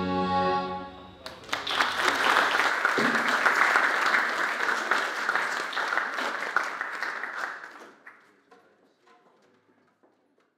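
The band's last held chord dies away, then the audience applauds for about six seconds, the clapping thinning to a few scattered claps and fading out near the end.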